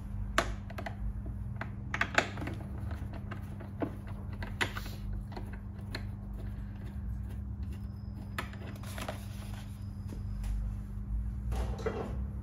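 Hand tool working the bolts that hold a Yamaha Jog scooter's plastic helmet compartment: irregular small clicks and taps of metal on bolt and plastic, with a few sharper knocks, over a steady low hum.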